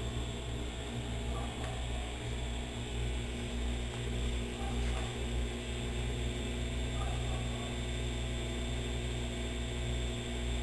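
GE 15 kg Eco Performance washing machine running at a low, steady spin speed with a steady hum. It cannot accelerate into its spin, the fault that strikes whenever it enters rinse or spin.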